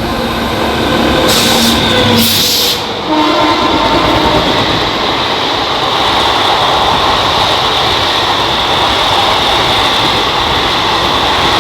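WAP-7 electric locomotive sounding its horn for about two seconds as it reaches the camera, then the express train rushing past at speed, its coaches rolling by in a loud, steady roar.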